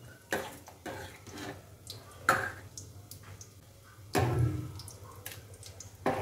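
Steel spoon and ladle stirring thick lentil-and-vegetable kootu in a pressure cooker and spooning it into a steel bowl: wet plops and drips with scattered clinks of metal on metal, about half a dozen short sounds, the biggest about four seconds in.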